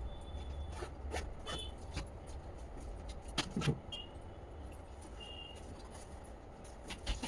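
Scattered light clicks and taps from small objects being handled during a laptop repair, over a steady low hum.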